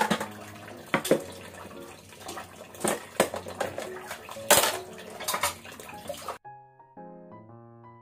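Dishes being washed by hand in a sink: plastic basins, ceramic bowls and a metal spoon clattering against each other with water running from the tap, several sharp clinks among the splashing. The washing sounds stop abruptly about six seconds in, leaving only piano music.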